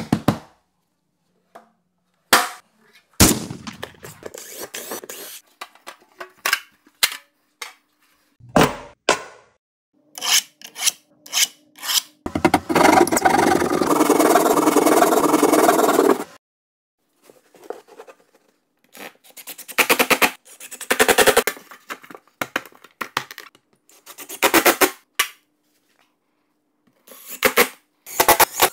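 A series of handwork sounds on drywall: scattered knocks and clicks, then a drywall hand saw rasping through the board for about four seconds, then several runs of quick scraping strokes.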